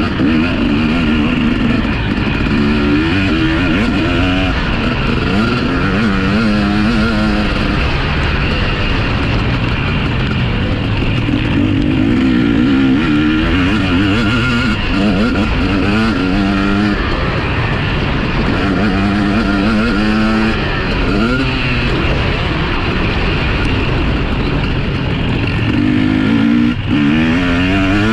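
Motocross bikes running on a dirt track. Engines rise and fall in pitch again and again over a steady din from the rest of the field as riders accelerate and ease off.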